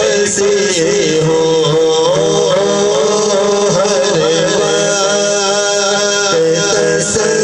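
A man singing a naat, a devotional praise poem, into a microphone: an unbroken, ornamented vocal melody with long held notes over a low steady hum.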